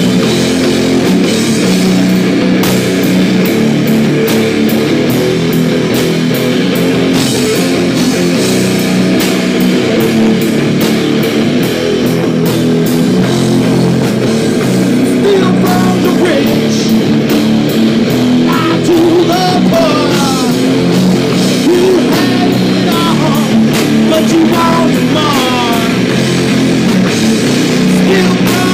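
Live rock band playing loud, distorted heavy rock: electric guitars through amplifiers over a drum kit, with sliding lead notes above the riff in the second half.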